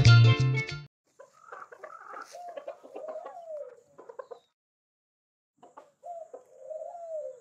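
Chicken clucking in two bouts, the second starting about a second after the first ends; each bout is a run of short clucks ending in a drawn-out call that falls in pitch.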